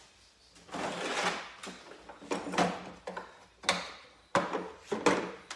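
Snap ring pliers working a snap ring on a motorcycle clutch hub: a scrape about a second in, then a run of sharp metal clicks and scrapes.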